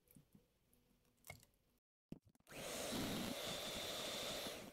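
Electric hand mixer beating cake batter of eggs, ghee and milk: after a few faint clicks it starts about halfway through and runs steadily with a constant high whine, stopping just before the end.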